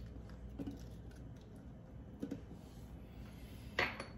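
Quiet kitchen room tone with a few faint taps as peeled garlic cloves drop into a plastic blender cup, then a sharper knock near the end.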